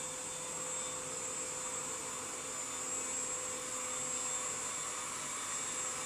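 UV Care portable handheld mattress vacuum cleaner (v2.0) running steadily as it is pushed across a mattress. It makes a constant hum with a high whine over a hiss.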